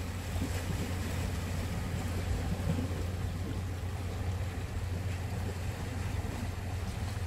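Sea washing against a rocky shore, with a steady low rumble of wind on the microphone throughout.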